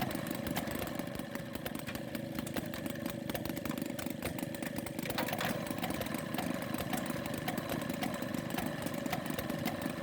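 Small kick-started gasoline engine of a gas-powered washing machine running steadily, with a fast, even putter.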